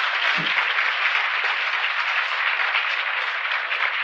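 An audience applauding steadily, a sustained round of many hands clapping, heard on a restored 1967 speech recording.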